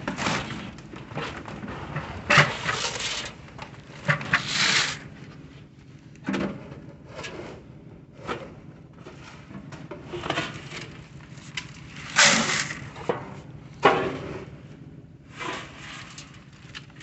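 Hog feed, pellets and cracked corn, being scooped and poured into a bucket: a string of short rattling rushes at irregular intervals, with knocks and scrapes between.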